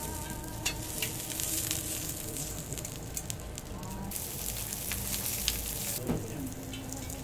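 Lamb sizzling on a hot Genghis Khan grill: a steady hiss of fat and juices spitting, with scattered crackles and pops.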